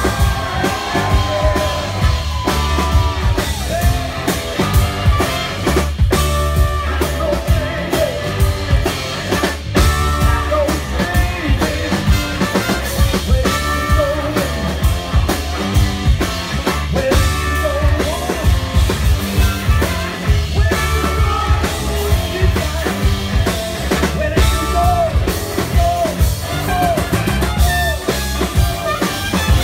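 Live band performance: a male lead vocalist singing over drum kit and electric guitar, with steady drumming throughout.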